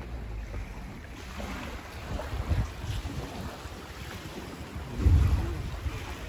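Wind buffeting the microphone in uneven low gusts, heaviest about five seconds in, over small waves lapping at a pebble shore.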